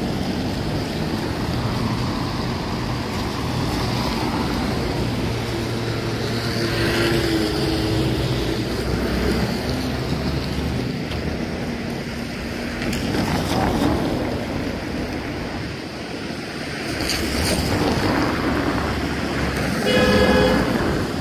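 City street traffic on a wet road: a steady hiss of passing cars. A car horn honks once, briefly, near the end.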